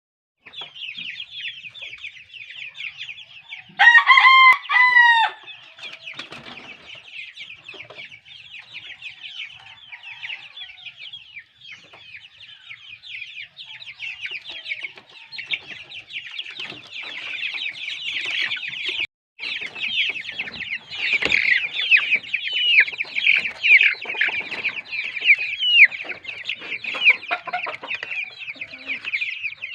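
Chickens: a rooster crows once, briefly, about four seconds in, over a steady din of many high-pitched calls from the flock that grows louder in the second half.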